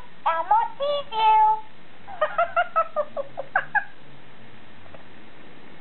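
Peek-A-Boo Elmo toy's recorded high-pitched voice speaking a short phrase, then a quick run of about eight short giggling syllables about two seconds in. After that only a faint low hum remains as the toy's arms move over its eyes.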